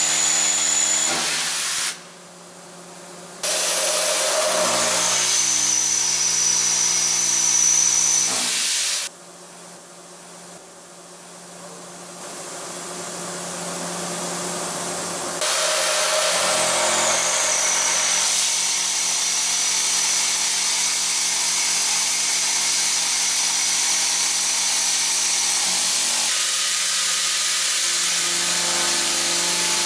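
Hwacheon SIRIUS-UZ vertical machining center face milling steel: the built-in motor spindle and face mill cutting with a steady machining noise and a high thin whine. The sound breaks off abruptly between several passes, and two stretches are quieter, one building gradually. Near the end a large face mill takes a heavier cut in carbon steel.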